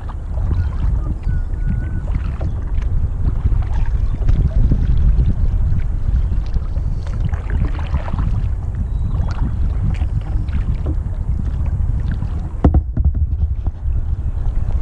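Kayak paddling: paddle splashes and dripping water over a heavy low rumble of wind on the microphone.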